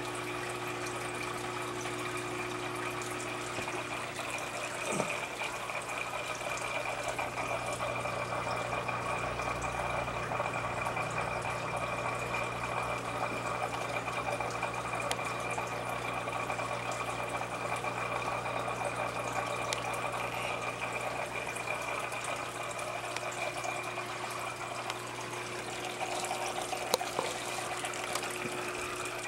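Aquarium filtration running: water steadily splashing and trickling, over the low, even hum of a pump. A single light click near the end.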